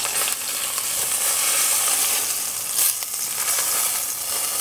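Swordfish steak sizzling steadily as it sears in hot oil in a stainless steel frying pan.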